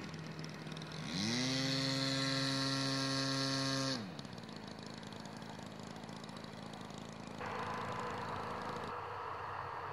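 Quarter-scale Raptor model aircraft's engine throttling up: its pitch rises quickly, then holds steady for about three seconds before cutting off abruptly. After that a fainter, steady engine sound follows.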